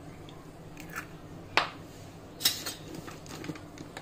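A raw egg knocked against the rim of a ceramic bowl and broken open: a few short sharp knocks, the strongest about a second and a half in and again near two and a half seconds, with lighter clicks around them.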